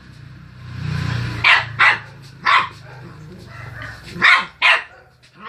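Small dog barking excitedly during play, five short sharp barks, over a low steady growl that fades after the first few seconds.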